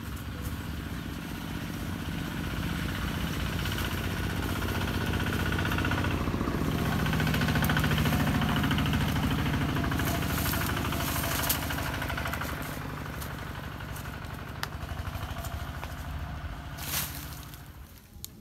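An engine running steadily, growing louder to a peak about eight seconds in and then slowly fading, with a few sharp clicks later on.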